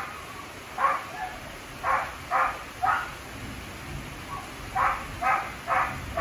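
A dog barking about eight times in short runs of two or three, over the steady hiss of heavy rain.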